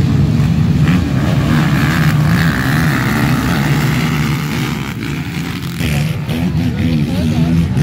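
Several racing quad ATV engines revving hard as a pack passes on the dirt track. The sound eases about five seconds in, then the revs rise and fall again near the end.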